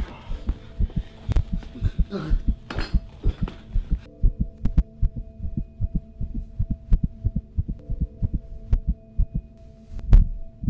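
Film score sound design: a rapid, heartbeat-like low pulsing over a sustained droning hum. Scuffling noise of a struggle lies over it for the first four seconds and then cuts off abruptly. A heavier low hit comes near the end.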